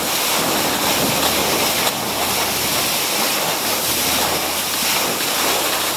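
Water rushing and spraying at the bow of a fast-moving boat: a loud, steady hiss of churning white water, with a faint low hum underneath.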